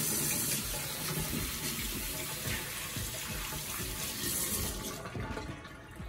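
Kitchen faucet running into a stainless steel sink while hands are washed under the stream, shut off about five seconds in.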